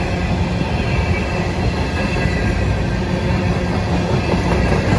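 Freight train cars rolling past close by: a steady, loud rumble of steel wheels on the rails.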